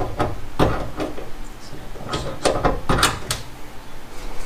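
Plastic wiring-harness clips being worked and pulled out of their holes in a car trunk lid's inner sheet-metal panel: a series of sharp clicks and knocks, the loudest about half a second in and around three seconds.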